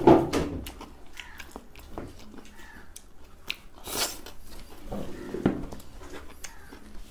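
Close-up mukbang eating sounds: a person chewing a mouthful of rice eaten by hand, with scattered wet mouth clicks and smacks.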